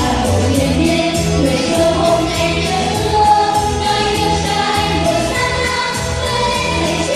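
A children's chorus singing a Vietnamese song in unison over recorded backing music with a steady beat.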